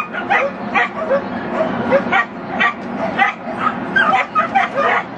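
Small dog barking over and over in short, high yaps, about two or three a second.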